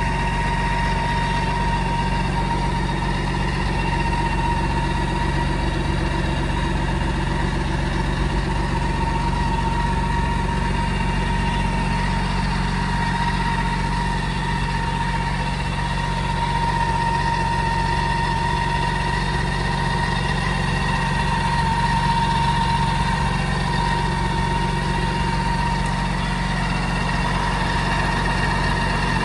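BMW K1600 GTL's inline six-cylinder engine idling steadily: an even low hum with a constant whine above it.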